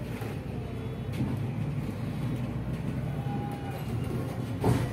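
City bus heard from inside while driving: a steady engine and road rumble, with a faint whine a little past three seconds in and a sharp knock near the end.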